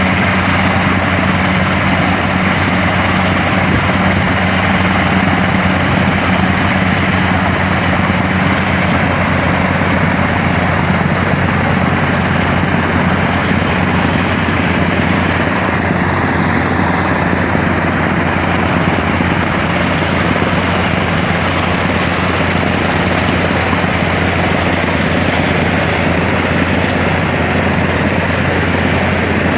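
Engine of a water-pipe drilling machine running steadily under continuous load, a loud, even drone with a deep hum.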